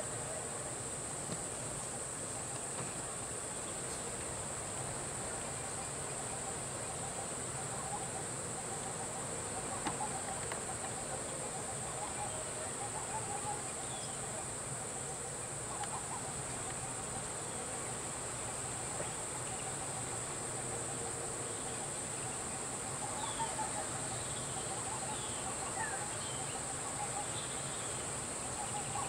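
Steady high-pitched drone of insects, with faint voices and a few short chirps near the end.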